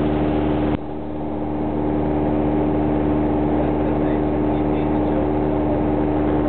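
Cessna 172SP's four-cylinder Lycoming engine and propeller running steadily in level flight, heard from inside the cabin. The sound drops suddenly in level just under a second in and climbs back over the following second or so.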